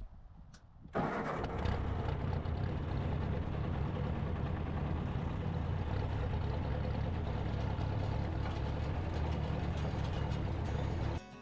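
Tractor engine running steadily, starting abruptly about a second in and cutting off shortly before the end.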